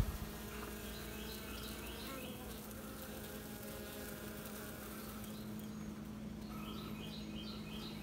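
Honey bees of a feral colony buzzing in a steady low hum, with a brief click at the very start.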